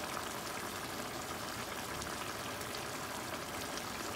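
Salted fish sauce simmering in a stainless steel pan: steady bubbling with faint scattered pops.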